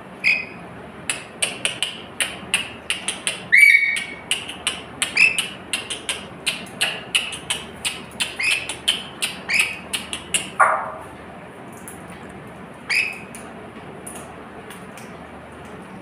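A lorikeet gives a rapid run of short, sharp screeching calls, several a second, for about ten seconds. The run ends in a longer call that falls in pitch, and after a pause there is one more call.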